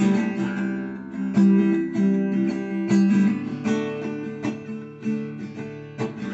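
Classical acoustic guitar strummed, the chord changing every second or so.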